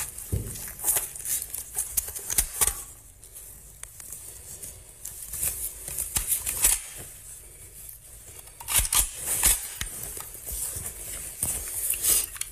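Close handling noise on a body-worn camera: irregular rustling, clicks and knocks as bedsheets are moved and an AK-47 rifle is picked up off a bed.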